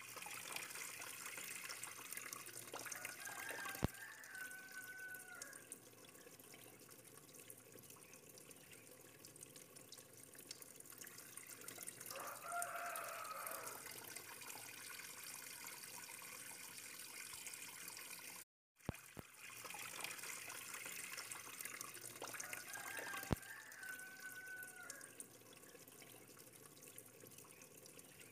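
Faint, steady sound of running water, with a short pitched sound breaking in three times; the track drops out for a moment just past the middle.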